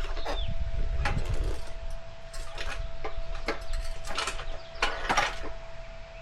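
Tire irons clicking and scraping against an aluminum dirt bike rim as a tire bead is levered and walked down onto it: a run of irregular sharp clicks and knocks, with a low rumble in the first second or so.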